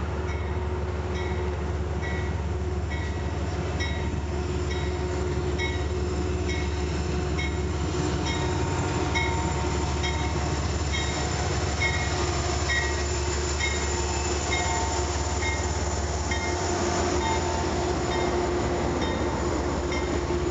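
Amtrak passenger train led by a GE Genesis diesel locomotive passing at speed: a steady rumble of diesel and wheels on rail. Over it, a bell rings steadily about twice a second.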